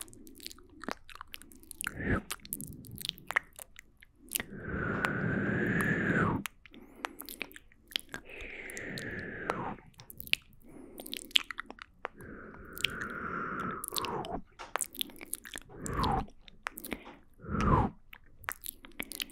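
Layered close-microphone ASMR mouth sounds: many quick wet mouth clicks and smacks, overlaid with several longer breathy sounds that fall in pitch.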